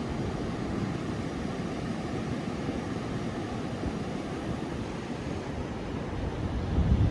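Steady rush of ocean surf with wind buffeting the microphone, getting louder just before the end.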